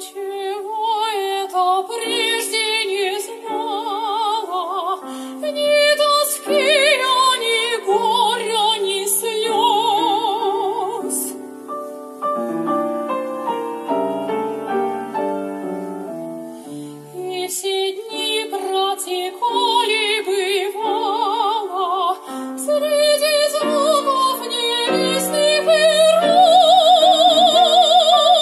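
A woman sings a Russian romance in a classical, operatic voice with wide vibrato, accompanied by a grand piano. About halfway through, the voice drops out for a few seconds of piano alone. Near the end she holds a long high note.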